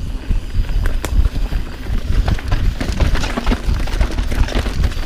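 Mountain bike descending a dirt trail at speed: tyres rumbling over the ground, with many small clicks and rattles from the bike and a heavy low rumble.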